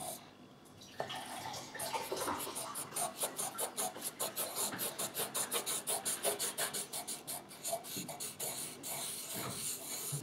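Colored pencil scribbling rapidly back and forth on paper: a fast, even run of scratchy strokes, about five or six a second, starting about a second in.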